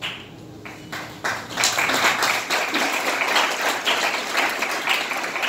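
Audience applauding: a few scattered claps at first, then steady applause from about a second and a half in.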